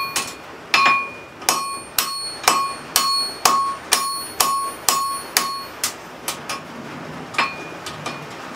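Hand hammer striking a hot railroad spike on an anvil, about two blows a second, each leaving a short metallic ring; the steel is being upset and shortened into a hatchet head. The blows get lighter and stop about seven and a half seconds in.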